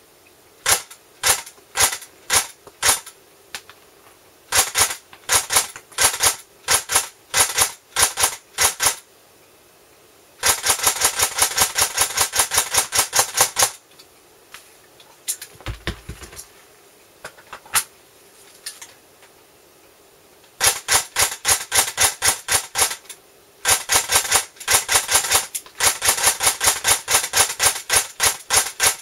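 ICS M1 Garand electric airsoft gun (AEG) firing: sharp clacks, spaced single shots at first, then quicker strings and several fast runs of shots. Firing pauses about halfway, with a low thud and a few faint clicks.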